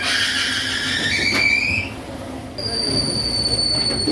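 Workshop machinery squealing, metal on metal: a wavering high squeal for the first two seconds, then a steady high whine from about two and a half seconds in.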